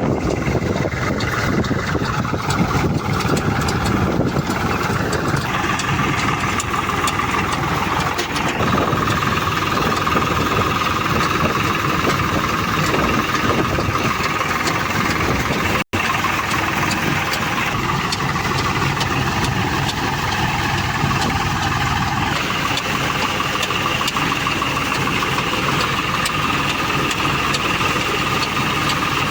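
An engine running steadily with a constant whine over its rumble, cutting out for an instant about halfway through.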